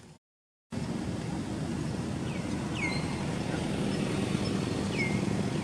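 Steady outdoor ambience with a low rumble, cut to silence for about half a second near the start. A bird gives a few short chirps that sweep down in pitch, twice in the middle and once near the end.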